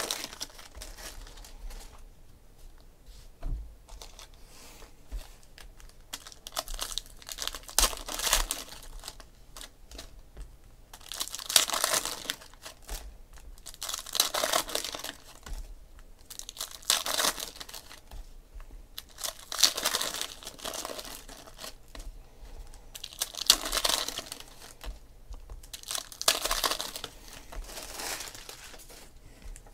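Foil trading-card pack wrappers crinkling and tearing as packs are ripped open, in repeated bursts about a second long every few seconds, with quieter rustling between.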